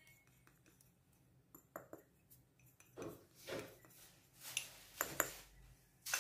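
A small cup knocking and scraping against a steel mesh sieve and bowl while cornflour is tipped in to be sifted. A few faint clicks come first, then louder scraping and clinking in the second half.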